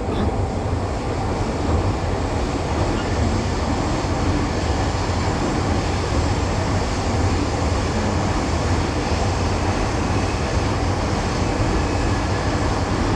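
Steady low rumble and hiss of a train running past, holding an even level throughout.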